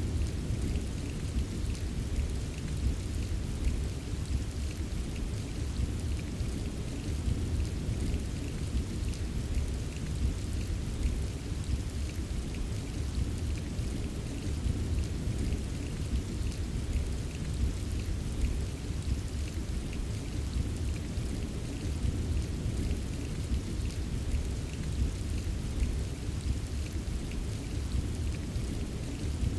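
Steady rain falling, an even wash of noise with a deep low rumble beneath it and faint scattered drop ticks on top.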